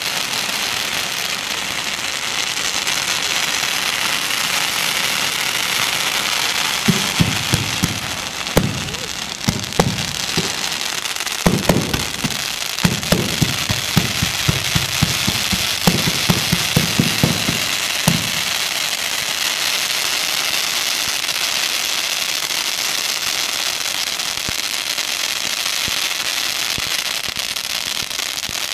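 Chinese firecracker strings going off in a dense, continuous crackle, mixed with the hiss of fountain fireworks, with sharper, louder pops scattered through and most frequent between about 7 and 18 seconds in.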